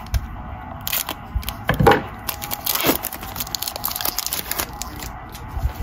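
Plastic wrapper of a Panini Mosaic trading-card pack crinkling and tearing as it is opened by hand, in a run of crackles and clicks that is loudest about two seconds in.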